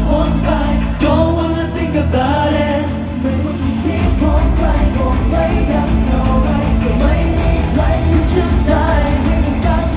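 Loud amplified pop music with singing from a live concert, heard from the audience. The deep bass drops away for a couple of seconds and comes back in full about four seconds in.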